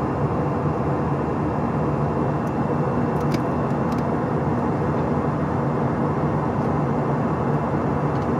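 Steady cabin drone of an Airbus A321's CFM56-5B turbofan engines and rushing air, heard from inside the cabin, with several steady tones running through it. A couple of faint clicks come a little over three seconds in.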